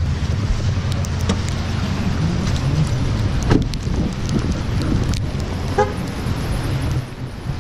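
Steady low rumble of traffic and wind, with a few sharp clicks and knocks.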